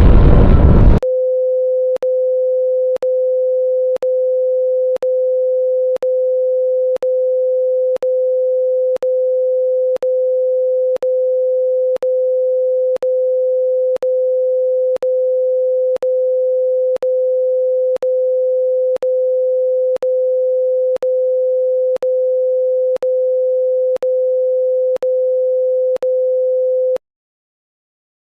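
The tail of a loud boom with music cuts off about a second in, and a single steady electronic tone takes over. The tone is mid-pitched and unwavering, with a tiny click once a second, held for about 26 seconds before cutting off abruptly into silence, like an off-air tone closing an emergency alert broadcast.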